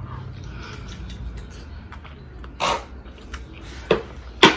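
Mukbang eating noises close to the microphone: three short smacking, crunching sounds of food being eaten, about two and a half, four and four and a half seconds in.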